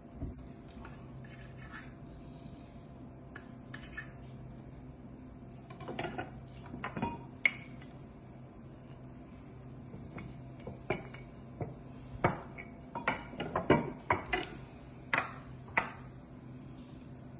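Kitchen utensils at work on a marble board: a knife trimming bread, a wooden rolling pin on the marble, and a spoon clinking and scraping in a ceramic bowl. They come as scattered clicks and knocks, a few about six seconds in and a busier run in the second half, over a steady low hum.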